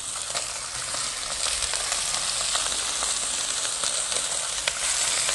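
Raw ribeye steaks sizzling in oil on a very hot Blackstone flat-top griddle, a steady hiss with scattered small crackles, getting a little louder as more steaks are laid down: a hard sear.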